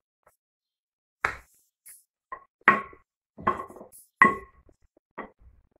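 Wooden rolling pin knocking against a hard tiled surface while rolling out thin rounds of dough: a series of separate sharp knocks, some ringing briefly.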